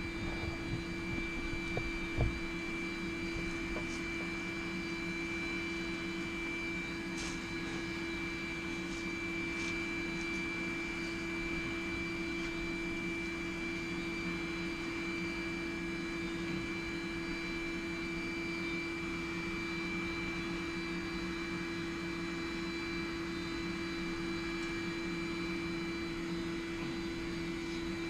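Small forge running with a steady, even hum at a fixed pitch while the axe head heats in it, with a few faint clicks about a third of the way in.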